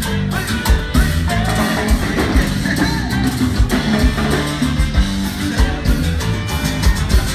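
Live band music played loud through a PA: accordion, guitar and drums with a steady dance beat.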